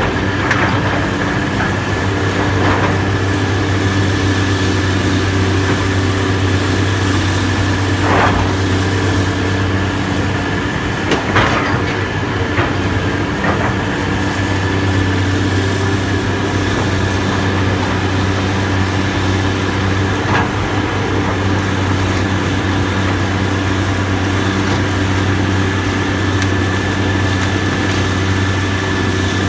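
Heavy diesel demolition machinery running steadily with a low engine drone and a constant high whine, with a few short knocks, the loudest about eleven seconds in.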